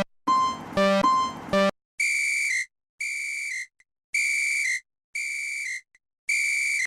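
Electronic railroad-crossing warning tones, synthesized. First a buzzy low tone sounds in quick repeating strokes. From about two seconds in it changes to five high, steady beeps about a second apart, each ending in a short pitch flick.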